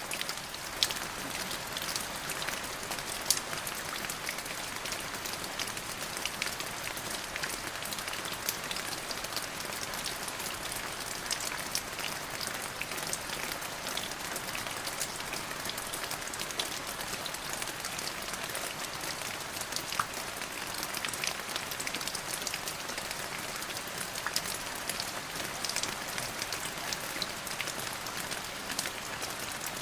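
Steady rain falling, a dense hiss with many separate drops pattering close by and a few louder drop hits.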